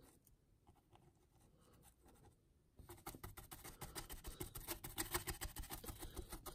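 A small flat paintbrush dabbing and scrubbing gritty mud-texture paste onto a model diorama base, making quick, faint scratchy brush strokes. The strokes start about three seconds in after a near-quiet stretch and come rapidly until the end.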